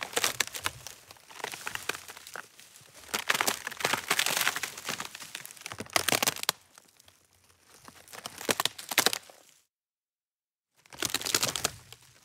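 Dubbed-in crackling and crinkling sound effects, standing in for the radish sprouts growing, come in several bursts of dense crackles. There is a second of dead silence about ten seconds in, then a final burst.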